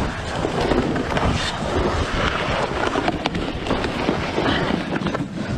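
Wind rushing over a helmet camera's microphone as a fallen skier slides down steep snow, with skis scraping and knocking against the snow.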